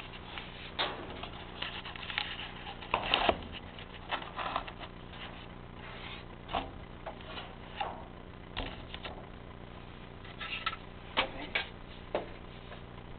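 Scattered clicks, knocks and rustles of things being handled at close range, with the loudest cluster about three seconds in, over a steady low hum.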